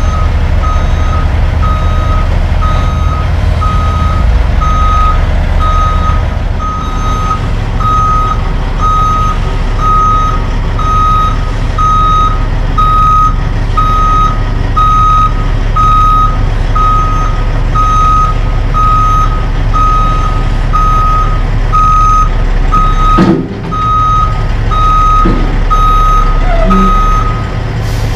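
Heavy truck's reversing alarm beeping steadily, about one and a half beeps a second, over a diesel truck engine running; the beeping stops shortly before the end. A single sharp knock about three-quarters of the way through.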